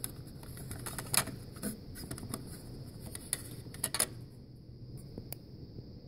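Handling noise as a Zippo lighter is taken out of its plastic display case: a handful of light, sharp clicks and taps, about five spread unevenly through the few seconds.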